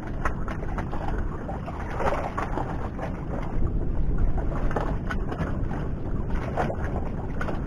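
Wind buffeting the microphone over open sea, a steady low rumbling noise, with scattered small clicks and rustles as a squid is handled and worked off the jig.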